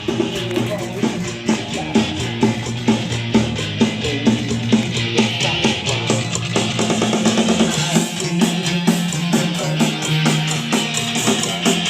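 Rock band music with drum kit and guitar playing steadily.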